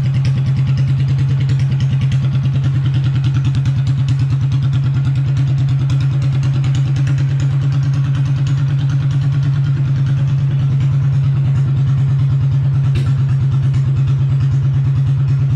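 Small gasoline engine of a Shriners parade car idling steadily with an even, rapid firing beat.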